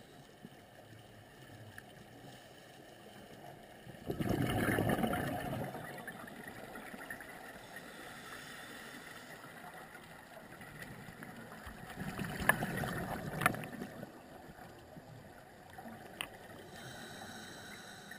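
A scuba diver's exhaled breath bubbling out of the regulator underwater, in two long bursts about eight seconds apart, over a steady low hiss. There are a few sharp clicks near the second burst and one a little later.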